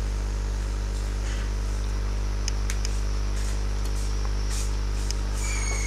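Steady low electrical hum with hiss, a few faint clicks between about two and five seconds in.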